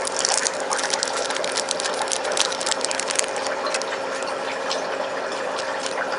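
Small clear plastic packets crinkling and rustling as they are handled close up, with many sharp little crackles. A faint steady hum runs underneath.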